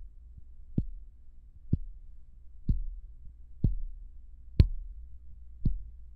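Fingertip tapping on the body of a Neumann KM184 small-diaphragm condenser microphone, picked up by that same microphone as handling noise: six short thumps about a second apart. A faint low hum runs underneath.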